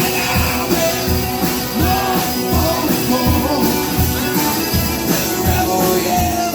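Live rock band playing a song: a steady drum kit beat with amplified guitars, and a voice singing over them.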